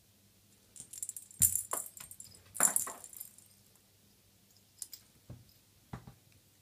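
A tabby cat's collar tag jingling as the cat rolls and paws about: two quick bursts of metallic jangling about a second in, then a few short single clinks near the end.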